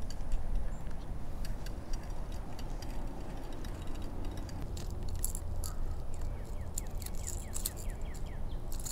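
Faint clicking of a baitcasting reel being cranked to retrieve a lure, over a low wind rumble on the microphone. In the second half a bird chirps repeatedly in short falling notes.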